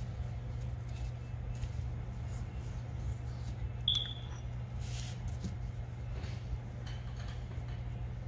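Steady low hum with faint clicks and taps as metal and ceramic pump-seal rings are handled on a padded bench mat, and one short high chirp about four seconds in.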